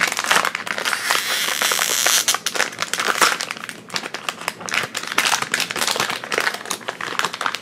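Crinkling and rustling of a blind-bag toy wrapper being handled and opened by hand, a dense run of crackly rustles.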